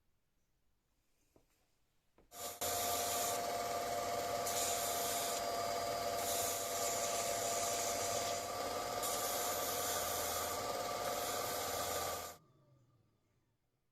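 A powered abrasive tool, such as a grinder or sander, running steadily for about ten seconds: a fixed motor whine under a coarse grinding hiss. It switches on abruptly about two seconds in and cuts off near the end with a brief run-down.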